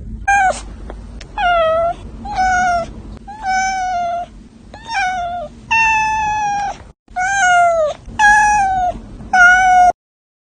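A cat meowing about ten times in a row, each meow a clear pitched call under a second long with short pauses between. The meows stop near the end.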